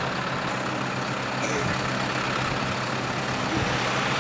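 Heavy tow truck's diesel engine idling steadily, a low even hum.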